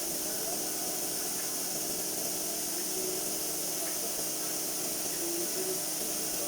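A steady, high hiss, with faint steady tones underneath.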